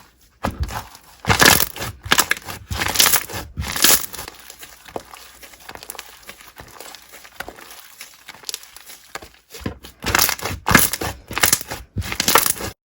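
Hands squeezing and pressing slime in a series of short, noisy squishes, busiest near the start and again near the end, quieter in the middle, then cutting off suddenly.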